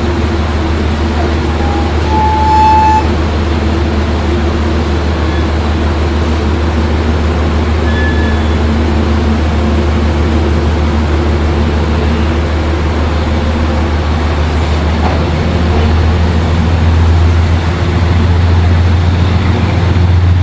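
Metro-North diesel train standing at the platform, its locomotive engine running with a steady low hum that grows a little louder near the end. A short high beep sounds about two seconds in.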